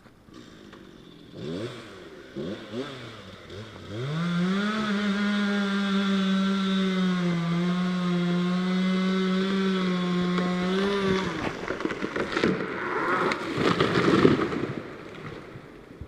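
Two-stroke chainsaw revved in a few quick blips, then held at full speed in a steady cut for about seven seconds, its pitch sagging slightly under load before it drops away. A burst of cracking and crashing follows near the end, the loudest moment, as the oak gives way and falls.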